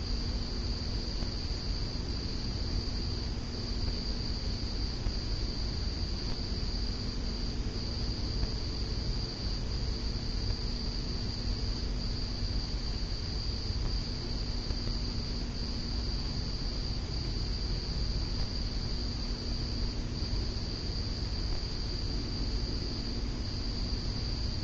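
SMC Laguna ceiling fan running steadily: a low hum and rush of moving air, with a continuous high-pitched trill over it.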